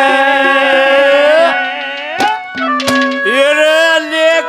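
Haryanvi ragni folk music with live accompaniment: a male singer holds a long wavering note that ends about a second and a half in, then the instruments carry on alone with a steady-pitched melody and a few sharp hand-drum strokes.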